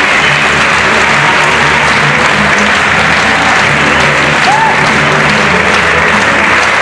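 Audience applauding steadily while music plays.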